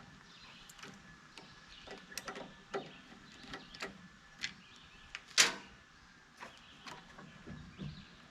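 Scattered clicks and knocks of hands and tools working on a push mower engine while the air cleaner box is pried off to reach the carburetor, with one louder sharp clack a little past halfway.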